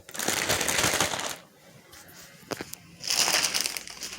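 Plastic zipper bag rustling as it is shaken to coat quartered biscuit dough in flour. It comes in two bouts of shaking with a short pause between them.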